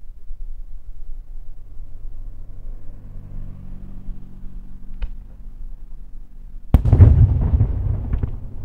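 Daytime aerial firework shell bursting overhead: one sharp bang about seven seconds in, followed by a long rolling echo with a few crackles as it fades.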